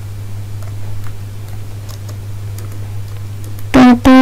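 Typing on a computer keyboard: scattered faint key clicks over a steady low hum. A loud voice cuts in near the end.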